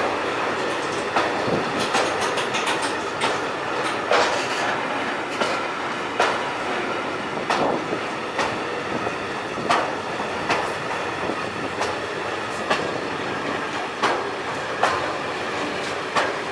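Container wagons of an intermodal freight train rolling past: a steady rumble of wheels on rail, with a sharp clack from the wheels roughly every second, often in quick pairs.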